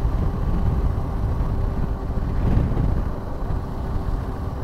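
Suzuki V-Strom 250 motorcycle running on the move, its engine sound mixed with wind rumbling on the microphone; a faint steady tone joins about two seconds in.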